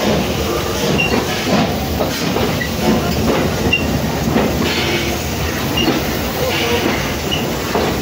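Historic steam-hauled train of vintage carriages rolling slowly past: a steady rumble with wheels clicking over rail joints and brief high squeaks.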